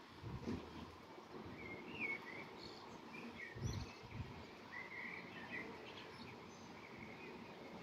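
Faint songbird singing: short warbling phrases repeated every second or two. A few brief low thumps on the microphone break in, the loudest about four seconds in.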